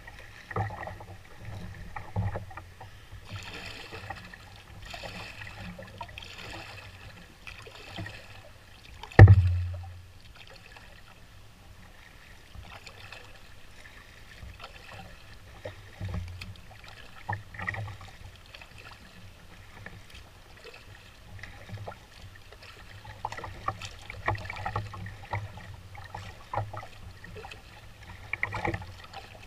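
Canoe being paddled: paddle strokes splash about once a second, with light knocks of wood and water against the hull, and one loud low thump about nine seconds in.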